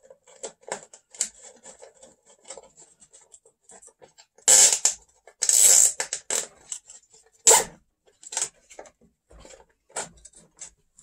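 Nylon zip ties being pulled tight, several short ratcheting zips, the loudest between about four and eight seconds in. Light clicks and rattles of plastic RC-truck parts being handled run underneath.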